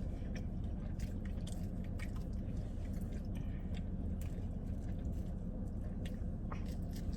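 A person chewing and biting pizza close to the microphone, with small irregular mouth clicks, over a steady low hum.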